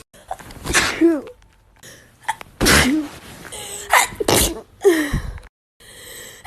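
Women sneezing: a quick run of about five loud, voiced sneezes, each a short burst with a falling pitch, separated by abrupt silent breaks.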